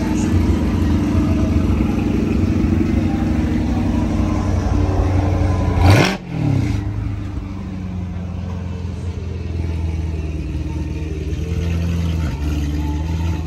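Mid-engine C8 Corvette's V8 running at low speed as the car pulls away, with one short rev about six seconds in.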